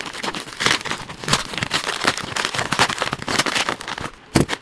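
Plastic bubble-wrap pouch crinkling and crackling as it is handled and pulled open, with one sharper snap near the end.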